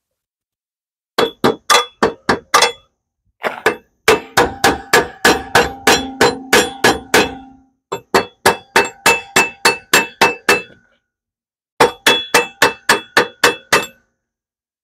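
Welder's chipping hammer striking the fresh tack welds on a steel mower-deck hanger bracket, knocking off flux-core slag. It comes as four runs of quick metallic strikes, about three a second, each with a short ring.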